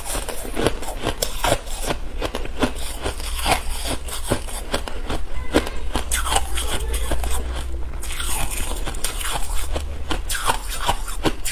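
Shaved ice crunching, close up, as it is chewed and scooped with a metal spoon: a dense run of crisp crackles and crunches, several a second.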